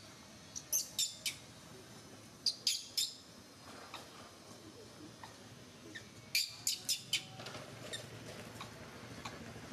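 Short, sharp high-pitched chirps in three quick clusters of three to five each, over a faint steady background.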